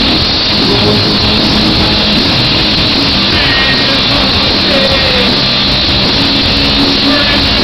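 Horror punk band playing live rock: electric guitars, bass and drums, heard from the audience in a large hall as a loud, dense, unbroken wash of sound.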